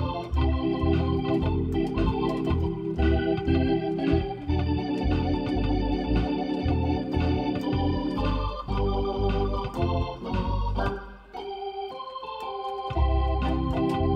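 Hammond SK2 organ playing a country tune: held chords over a bass line that bounces about twice a second, with crisp key clicks on the note attacks. About eleven seconds in, the bass drops out briefly and the playing thins, then comes back in full.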